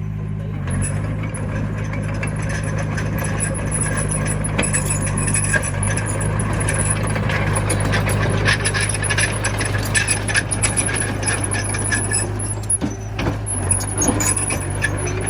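Komatsu mini bulldozer's diesel engine running steadily, with dense metallic clinking and clanking from the steel tracks and blade as the machine works.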